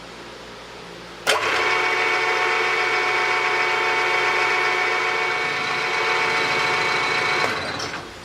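Milling spindle motor of a 3-in-1 lathe-mill-drill machine switched on with a sudden start about a second in, running steadily with a whine of several fixed tones, then switched off near the end and spinning down.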